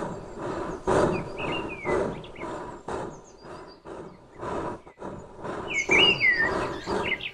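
Footsteps through dry grass and twigs at a walking pace, about two steps a second, with a bird chirping twice.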